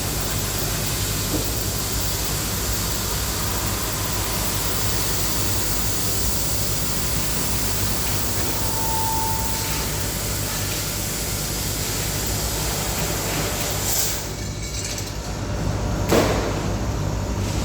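Steady mechanical noise: a hiss over a low hum. About fourteen seconds in the hiss drops away, and a single sharp knock comes about two seconds later.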